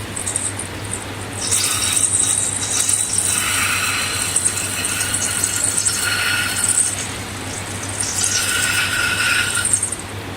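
Rubber balloon squeaking and rubbing as it is handled and stretched, in two long stretches of squeals and scratchy rubbing with a short pause between, over a steady low hum.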